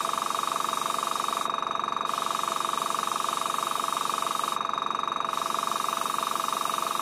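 HSENG AS18TB 1/6 HP airbrush compressor running steadily with a fast pulsing hum, while air hisses out of a marker-pen airbrush. The hiss cuts out briefly twice, about one and a half seconds in and again near five seconds, as the spraying stops and restarts.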